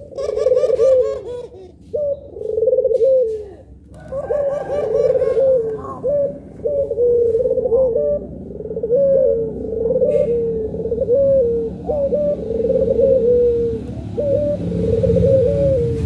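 Puter pelung doves (a long-voiced Barbary dove variety) cooing over and over. There are a few short gaps between phrases at first, then from about four seconds in the coos run on almost without a break.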